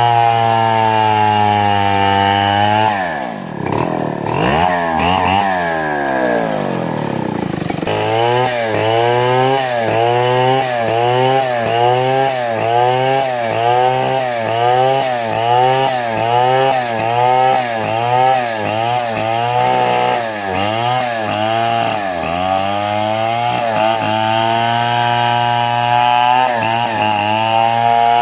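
Two-stroke chainsaw running under load while cutting wood. Its engine pitch dips and wavers a few seconds in, then rises and falls about once a second as the saw bogs and recovers in the cut.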